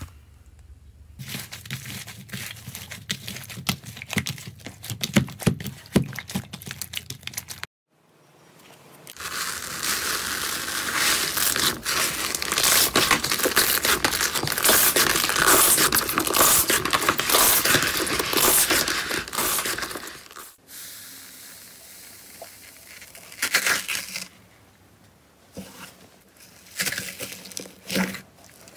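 Hands working slime in a plastic tub. First scattered crackles and pops as foam-bead slime (floam) is pressed. After a brief break comes a long, loud, dense crackling tear as red slime is pulled and stretched out of the tub, and fainter scattered clicks follow near the end.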